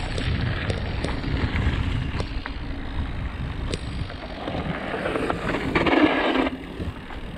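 Radon Swoop 8.0 AL enduro mountain bike riding fast downhill: tyres rumbling over the trail and wind on the action camera's microphone, with scattered sharp rattling clicks from the bike. A louder gritty rush builds about five seconds in and cuts off suddenly about a second before the end.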